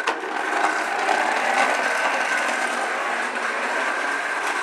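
Toy push lawn mower's noise-making mechanism clattering steadily as it is pushed along, a rapid ratcheting that sounds like a little lawnmower engine.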